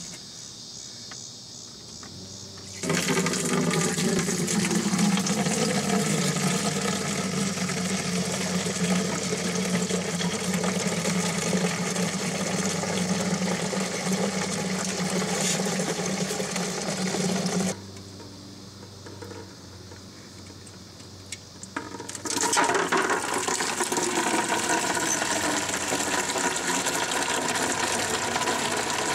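Old coolant pouring from the Saturn's radiator drain into a plastic catch container, a steady splashing stream that starts about three seconds in, stops for about four seconds after the middle, and then runs again.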